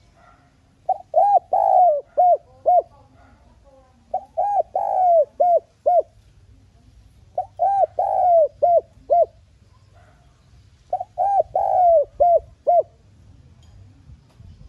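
Spotted dove singing its cooing song: four phrases of five or six short, arching coos each, one phrase every three to four seconds.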